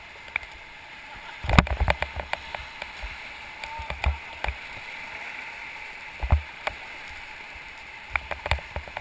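River water rushing steadily around a whitewater raft, with a series of sharp knocks and thumps on the raft, a dense cluster of them about a second and a half in and more near the end.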